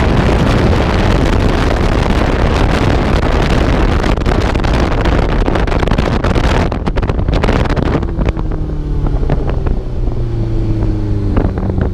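Heavy wind buffeting on a GoPro's microphone while riding a Honda CBR650F. About seven seconds in, the wind noise drops away and the bike's inline-four engine comes through, its pitch falling slightly as it slows.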